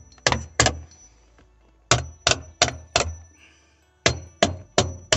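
Hammer blows on the cut-out sheet-metal flap of a 2002 Cadillac Escalade's floor, bending it up. The sharp metallic strikes come in quick groups: two, then four, then four.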